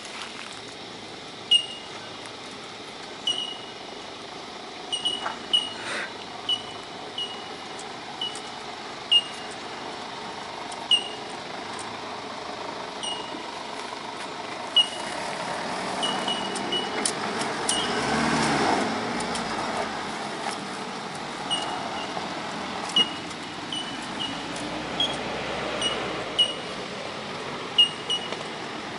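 Ford Ranger ute's engine working as it climbs a steep rutted dirt track, swelling to its loudest about two-thirds of the way through, then easing as the truck pulls away up the hill. Short sharp high pings repeat over it every second or two.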